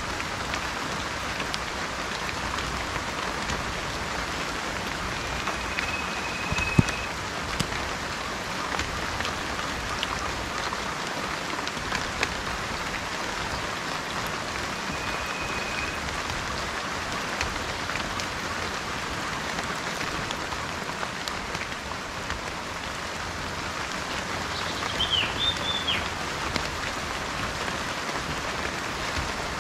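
Steady rain pattering, with scattered drop ticks. A bird gives a high, held whistled note twice and a short burst of chirps near the end.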